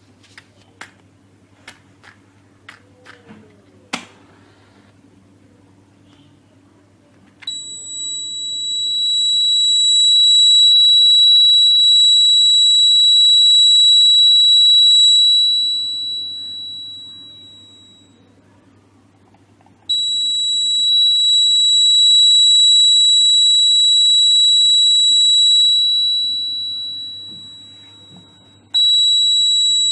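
A few sharp clicks, then the buzzer of a homemade heat-triggered fire alarm sounds a loud, steady high-pitched tone. The tone starts about seven seconds in, fades out after about ten seconds, comes on again about twenty seconds in and fades, then starts again near the end. It shows that heat has pushed the alarm's sensitive plate onto its contact and closed the circuit.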